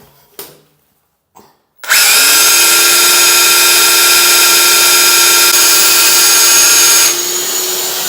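A few light handling clicks, then about two seconds in an electric drill starts and runs at a steady high speed with a whine, drilling into wall tile in plain drill mode, not hammer mode. Its sound drops somewhat about a second before the end.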